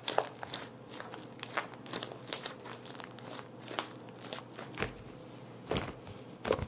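Homemade slime being squished and worked by hand, giving irregular wet clicks and small pops, with a few heavier squelches near the end.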